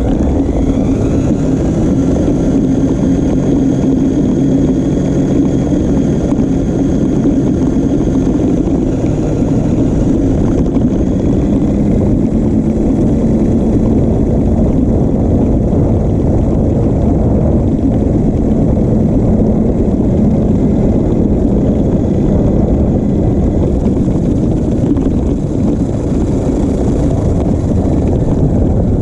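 Electric drive motor and gearbox of a New Bright Grave Digger RC monster truck whining steadily as it drives, heard close up from on top of the truck, over a rough rumble of wheels and wind. The whine settles a little lower in pitch about twelve seconds in.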